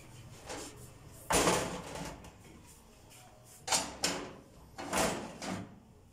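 Knocks and clinks of a tray with small glass dessert cups being set down on a gas stove's metal grates, and a pot lid being moved aside: about five sharp knocks, the loudest about a second in.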